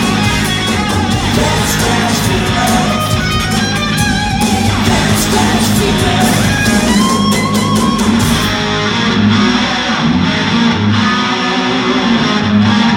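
Live hard rock band playing loudly: distorted electric guitar over bass and drums, with a lead guitar line that slides and bends in pitch.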